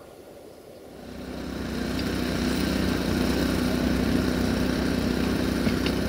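Diesel railway engine running steadily, growing louder over the first couple of seconds as it draws near and then holding at a constant, even pitch.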